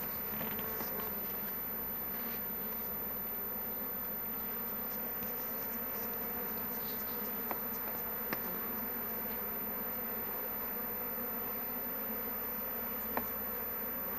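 Steady buzzing of a mass of honeybees around an opened hive, stirred up as their honey frames are taken. A few light clicks sound over it, two about halfway and one near the end.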